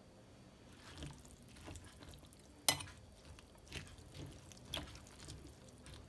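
A metal spoon stirring chunks of vegetables in broth in a stainless steel saucepan: a run of scattered clinks and knocks against the pot, with the loudest, sharp clink about two and a half seconds in.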